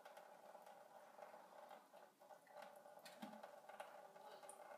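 Near silence: a faint steady hum with scattered soft ticks, a cat pawing and lapping at water in a kitchen sink.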